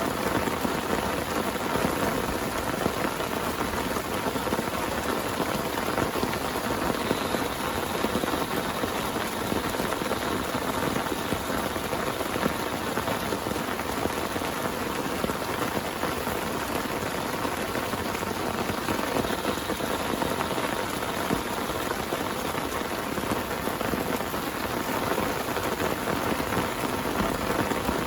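Heavy rain pattering steadily on a tent, a dense, even drumming of drops.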